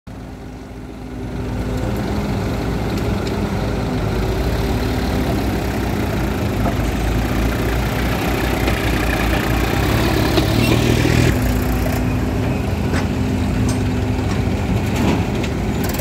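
Diesel engines of a Volvo crawler excavator at work and a farm tractor idling beside it, running steadily and getting louder over the first two seconds. A rush of noise from about eight to eleven seconds in comes as the excavator tips a bucket of soil into the tractor's trolley.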